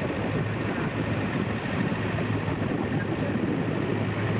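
A steady low engine drone: a constant hum under an even wash of noise.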